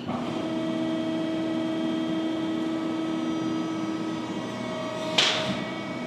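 A Finn-Power 320-ton hydraulic crimping machine running with a steady, multi-tone hum as its eight dies close and squeeze a hockey puck. One tone drops out about four seconds in, and a short hiss-like burst comes about a second later.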